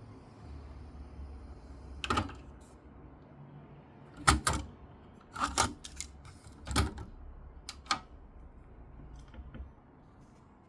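Yamaha KX-330 cassette deck's transport keys and mechanism being worked: about six sharp mechanical clicks and clunks, the loudest a quick pair about four seconds in, over a low hum that stops near the end.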